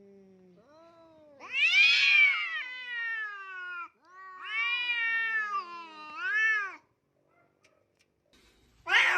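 A cat giving two long, drawn-out meows, each rising and then falling in pitch; the second wavers and ends in a short rise and fall.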